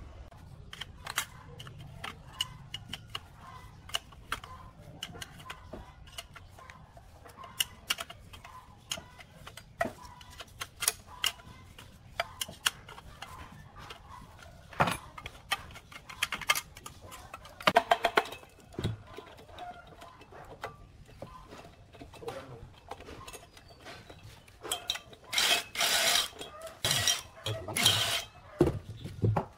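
Metal clinks and taps of hand tools on a small air-cooled Robin engine being stripped down. Near the end, a cordless impact wrench hammers in several loud bursts on the cylinder head bolts. Partway through, a chicken clucks briefly.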